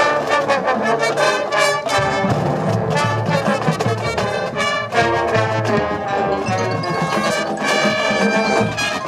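Marching band playing loudly, led by brass (trumpets and trombones) over sharp drum hits.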